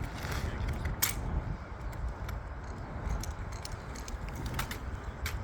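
Sharp clacks and slaps of drill rifles being handled in a rifle drill routine, with a light metallic rattle; the loudest crack comes about a second in, with two more near the end, over a low rumble.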